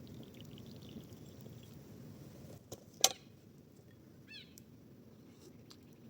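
A single sharp knock about three seconds in, then a short bird call of several quick high chirps a second later, over a faint steady low rumble.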